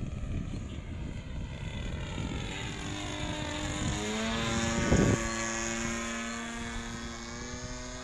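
RC model plane's DLE 20cc single-cylinder two-stroke petrol engine running as the plane flies past. The engine note grows louder to a peak about five seconds in, then its pitch drops and it fades as the plane moves away.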